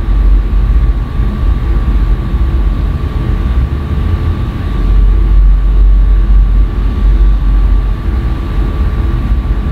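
A steady low rumble with a thin, constant hum above it; no knock or other sudden sound stands out.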